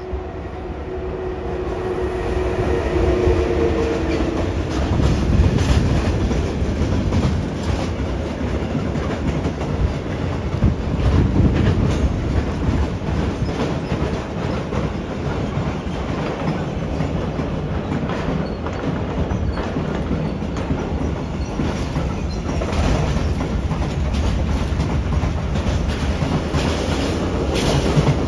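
Train running past on the rails: a rumble that builds over the first few seconds and stays loud, with the wheels clattering over rail joints. A steady whine is heard at first and fades out within about four seconds.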